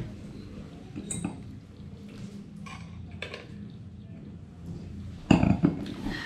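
Fork and plates clinking at a dining table: a few scattered light clinks, then a louder knock near the end.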